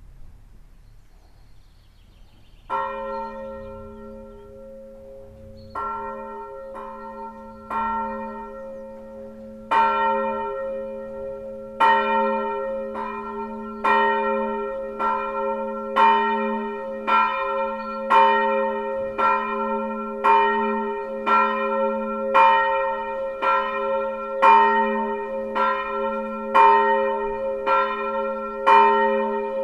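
A single swinging church bell, tuned to A-sharp, being rung up. Its first stroke comes about three seconds in, then the strokes come closer together and grow louder until it rings steadily at about one stroke a second, each stroke ringing on into the next.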